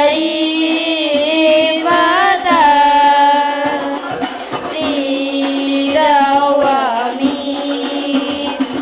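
Music with singing: long held notes that glide and waver, over a steady pattern of light percussion taps.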